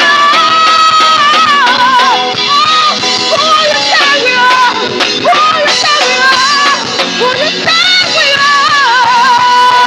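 Live worship band music, with a lead melody line that bends and wavers in pitch over the sustained band.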